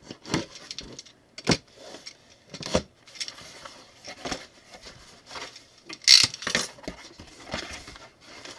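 A cardboard shipping box being handled: its flaps folded open and the contents rummaged, with irregular knocks, rubs and rustles of cardboard. The loudest is a short scrape about six seconds in.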